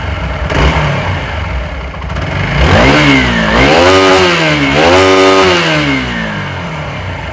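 TVS Apache RTR 4V's single-cylinder engine, freshly rebuilt with new piston rings and camshaft, idling and then revved in three quick throttle blips starting about three seconds in, settling back to idle near the end. The engine is still tight from the rebuild and is expected to sound smoother once it runs in.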